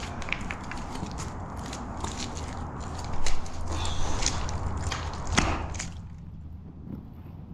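Footsteps scuffing and crunching over a muddy, stony cave floor, with small clicks of grit and stones, and a louder knock about three seconds in and another about five and a half seconds in.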